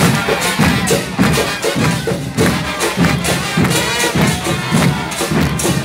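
Murga carnival percussion: bass drums with cymbals pounding out a quick, steady dance beat.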